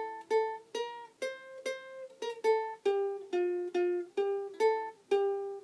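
Music: a slow melody of single plucked string notes, a little over two a second, each ringing and fading before the next, with now and then two notes sounded together.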